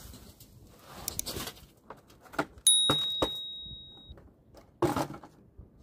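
Soil tipped out of a bucket with a soft rush, then several knocks on the bucket. One sharp metallic ding about three seconds in rings on for over a second, and a last thump comes near the end.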